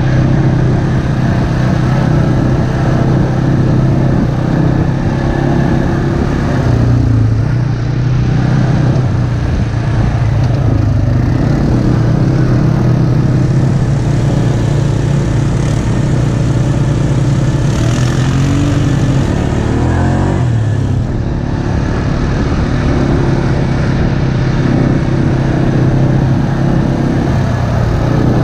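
ATV engine running at trail speed, its pitch dipping and rising again a couple of times as the throttle is eased and reopened.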